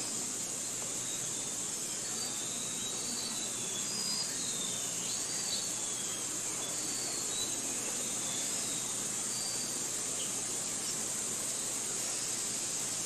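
Forest ambience: a steady high-pitched hiss, like insects or water, with short bird chirps and whistles scattered through the first ten seconds or so.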